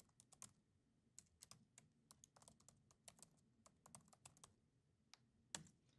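Faint typing on a computer keyboard: quick, irregular key taps, with one louder tap near the end.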